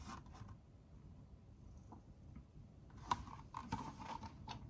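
Near silence for about three seconds, then a few short soft rustles and taps as the paper pages of a picture book are handled and turned.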